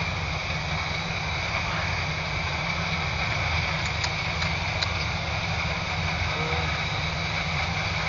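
Combine harvester running, a steady mechanical drone with a rough low rumble under a constant higher hum.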